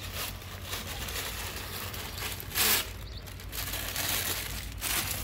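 Paper bread bag crinkling and rustling as it is handled, with a few louder crackles, the loudest about two and a half seconds in.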